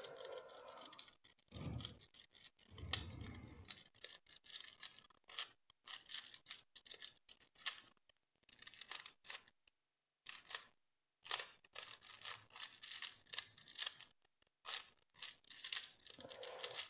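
Faint plastic clicks and scrapes of a crazy 3x3x2 twisty puzzle's layers being turned in quick, irregular succession through a parity algorithm of half turns and middle-slice turns, with a short pause about ten seconds in.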